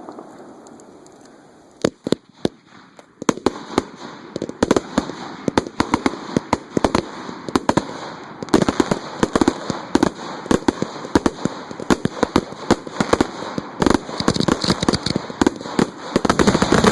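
Consumer fireworks show heard at close range: sharp bangs and cracks of shells launching and bursting, starting about two seconds in and soon coming several a second in a steady barrage.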